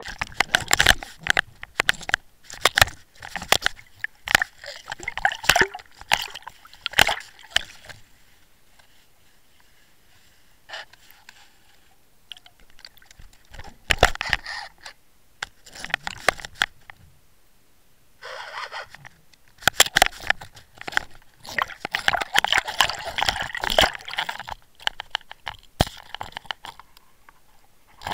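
Underwater camera housing on a fishing line, jerked about in the water as a pike fights on the lure: clusters of sharp knocks, clicks and rattles with sloshing water. A quieter spell comes about a third of the way in, then the knocking picks up again.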